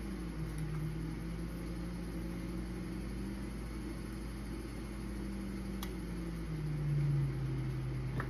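Electric potter's wheel motor humming steadily as the wheel spins, its pitch shifting down and up as the wheel speed changes, dropping lowest about two thirds of the way through.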